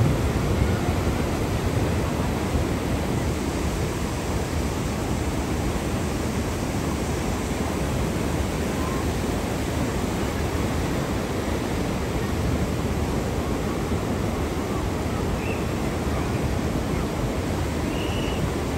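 Steady rush of turbulent water churning below a dam's outflow.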